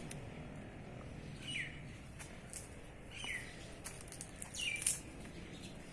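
A bird calling: three short chirps, each falling in pitch, spaced about a second and a half apart, with a few faint clicks between them.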